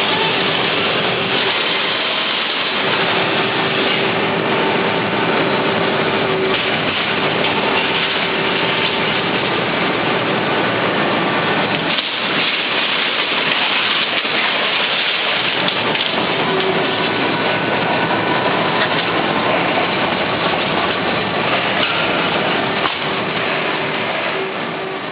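Trumpf CNC punching machine slitting sheet metal with a Wilson Tool Rolling Shear: a steady, dense crackling rush with machine whines that come and go, fading near the end.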